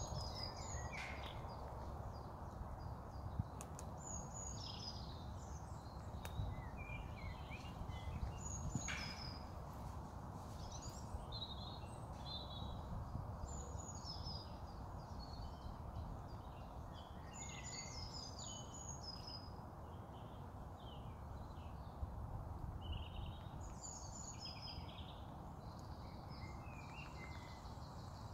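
Woodland songbirds singing: short, high-pitched phrases from several birds, overlapping and recurring every few seconds, over a steady low rumble, with a couple of soft clicks a few seconds in.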